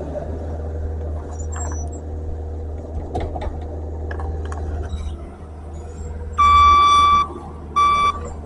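Skid steer engine running steadily, with a few knocks and clanks of the machine working. About six and a half seconds in, its reversing alarm sounds one long beep, then a shorter one a second later.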